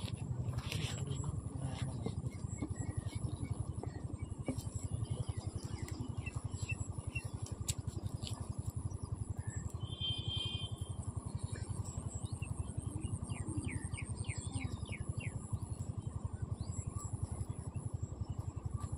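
A steady low rumble, with small birds chirping now and then.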